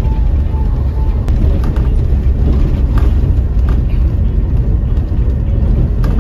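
Steady low rumble of a moving bus, engine and road noise, with a few faint clicks and rattles.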